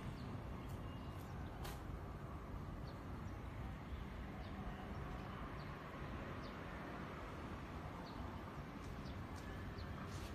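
Outdoor background: a steady low rumble with faint, scattered short bird chirps and a single click about two seconds in.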